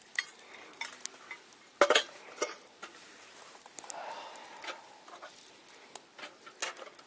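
Wood fire crackling: irregular sharp pops and snaps, the loudest two close together about two seconds in.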